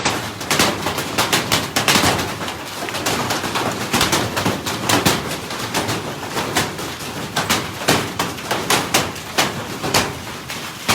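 Hailstones striking hard surfaces: a dense, irregular pelting of sharp impacts, several a second, over a steady hiss of falling hail and rain.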